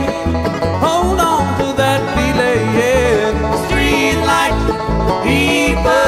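Background music with a steady bass beat and a gliding lead melody.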